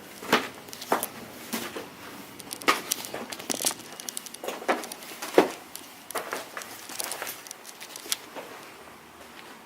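Footsteps of a person walking, a sharp crunching step about every half second.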